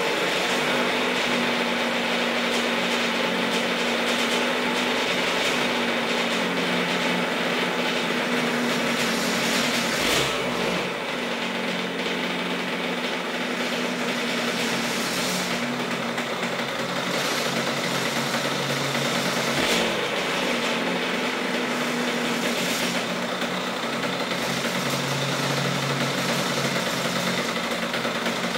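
Freshly rebuilt 1998 Kawasaki KX80 two-stroke single-cylinder engine idling a little high, running steadily. It briefly gets louder twice, about ten and twenty seconds in.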